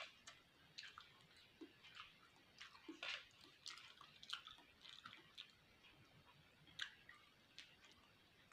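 Faint close-up chewing of tough beef fat: irregular wet mouth smacks and clicks.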